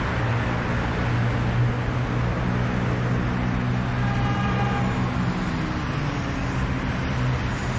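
Steady road traffic: car engines and tyre noise with a constant low engine hum, and a faint short high tone about four seconds in.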